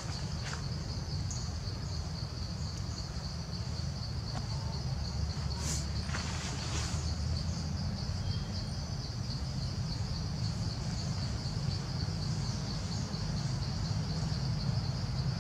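Steady, high-pitched insect chorus from the forest, a continuous shrill drone that pulses slightly. A low, steady rumble runs underneath.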